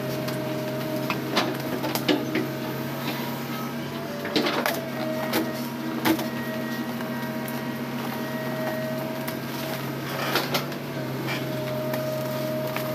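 Hitachi hydraulic excavator's diesel engine running steadily, with a higher whining tone that comes and goes as the arm moves. Several sharp knocks and cracks stand out as the bucket works the logs.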